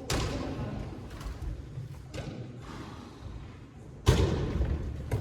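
A series of heavy thuds at irregular intervals, each trailing off briefly, the loudest about four seconds in.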